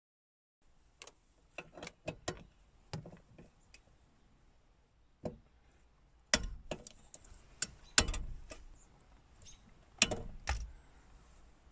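Irregular metallic clicks and knocks of a hand tool working on a Toyota RAV4's parking brake lever assembly while the parking brake cable is being removed, with a few sharper knocks from about six seconds in.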